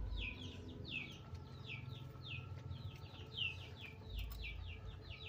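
Chicks peeping: a steady run of short, falling notes, two or three a second.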